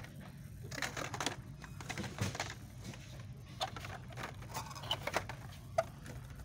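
Hot Wheels blister-card packages rustling and clicking against each other and the metal peg hooks as they are flipped through by hand, a string of short irregular clicks and crinkles over a steady low hum.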